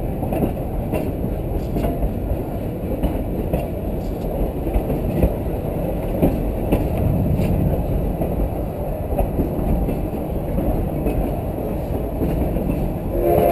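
Large-scale garden railway train rolling along its track, heard from a car riding on the train: a steady low rumble of wheels and running gear with faint repeated clicks. A steam whistle starts right at the end.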